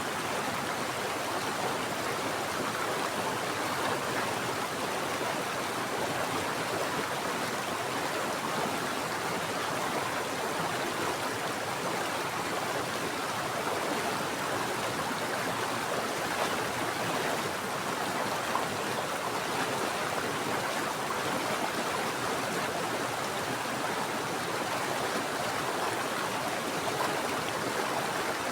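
Mountain stream running water, a steady, even rush with no changes.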